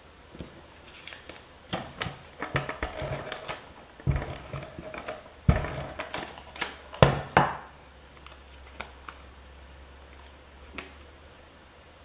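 Paper crafting by hand: cut paper pieces being handled and pressed down onto a scrapbook page, a run of rustles, taps and clicks with a few sharper knocks, dying away to a few faint ticks over the last few seconds.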